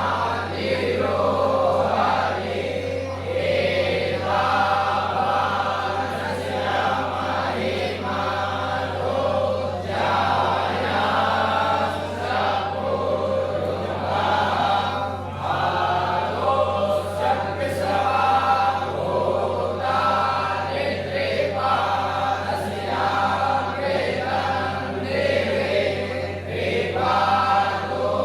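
A group of voices chanting Hindu mantras together in a sung, phrased recitation, with a steady low hum underneath.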